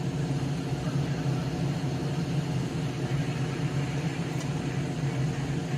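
Hot air rework station blowing steadily on a circuit board to melt the solder on a knob's joints: an even rush of air over a steady low hum.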